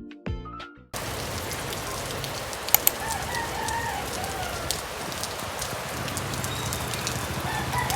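A rooster crows, once about three seconds in and again near the end, over a steady hiss of rain. Background music fades out in the first second.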